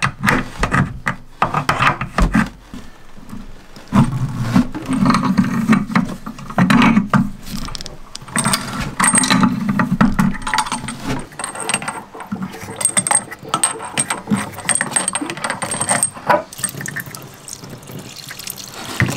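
Pliers and brass plumbing fittings on a boat's water heater clinking and clicking repeatedly as the fittings are worked loose, with water running at times.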